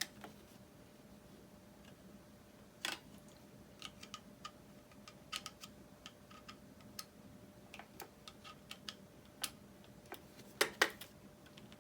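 Irregular small clicks and taps of a plastic RC transmitter and its clip-on thumb-steering adapter being handled and adjusted by hand, with two louder clicks close together near the end.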